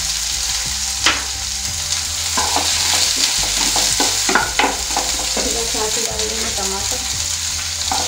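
Sliced onions and garlic sizzling in hot oil in a nonstick frying pan, with a steady hiss. A wooden spatula stirs them, scraping and knocking against the pan at irregular moments.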